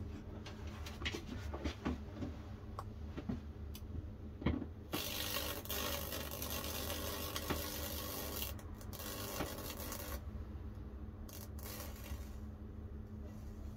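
High-voltage current hissing as it arcs and burns through a wet, solution-soaked cedar board in fractal (Lichtenberg) wood burning. The hiss starts about five seconds in and drops away around ten seconds, with a couple of short bursts after. A few sharp clicks come before it, and a steady low hum runs underneath.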